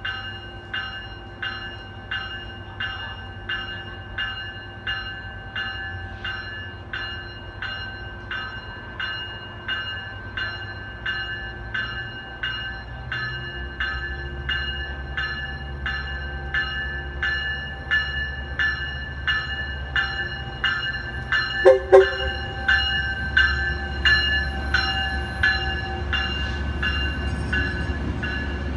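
Metrolink commuter train arriving with its bell ringing steadily, about one and a half strokes a second, over a low rumble that grows as the train draws near. Two short horn toots about 22 seconds in.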